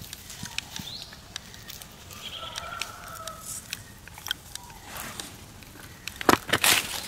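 Dry leaves crackling and rustling as macaques move over rock and leaf litter, with louder crunches near the end. A faint animal call lasting about a second comes in midway.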